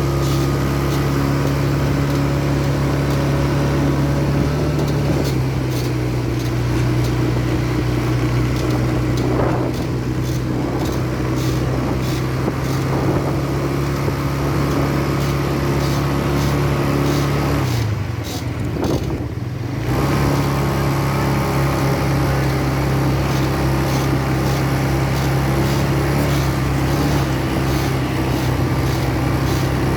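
ATV engine running at a steady pitch, with scattered short knocks. About eighteen seconds in the engine note falls away for a couple of seconds, then comes back at the same pitch.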